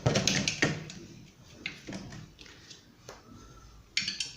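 Clicks and knocks of a ceiling fan blade being handled and fitted onto the fan's motor: a handful of separate taps, the loudest at the start and about half a second in, quieter ones after.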